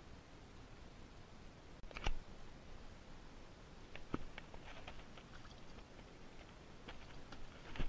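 Faint scattered clicks and knocks, with one sharper knock about two seconds in and a run of light clicks from about four seconds on.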